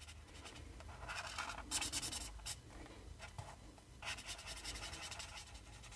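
Faint scratching of a marker tip on card as small stamped leaves are coloured in short strokes, in two spells, about a second in and again about four seconds in.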